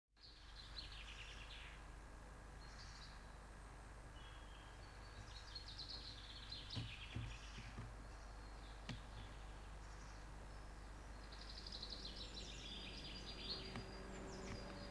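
Several songbirds singing, with repeated trilling phrases that fall in pitch, over a steady background hiss and faint hum. A few low thuds sound around the middle. Near the end, soft held musical tones come in.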